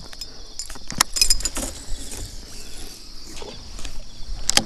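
Sharp clicks and clacks from a baitcasting rod and reel being handled: one about a second in, a short cluster just after it, and another near the end, over a steady high hiss.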